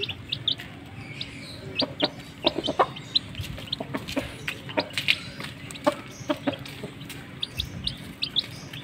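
Domestic chicks peeping in short, high notes, several each second, with a hen clucking in lower notes among them as the brood feeds.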